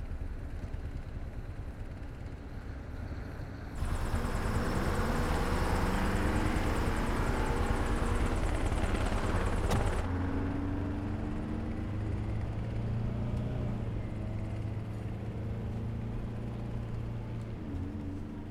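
Vehicle noise from city traffic: a low rumble, then about four seconds in a sudden louder stretch with several gliding tones, settling about ten seconds in into the steady low drone of a city bus's engine running.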